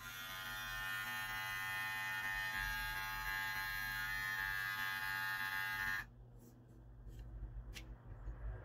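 KEMEI cordless T-blade hair trimmer switched on and running with a steady buzz for about six seconds, then switched off suddenly. A few faint handling clicks follow.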